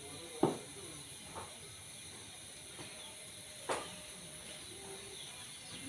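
A steady hiss with three short, sharp knocks: one about half a second in, one at about a second and a half, and one near four seconds.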